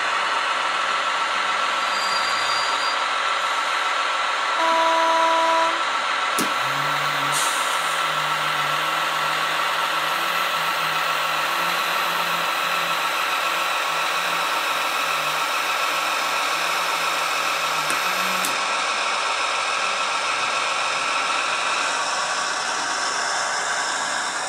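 Kaluga diesel shunting locomotive sound: the engine running steadily. About five seconds in there is a short single-pitch toot. A click follows, then a deeper engine note that holds until about eighteen seconds in.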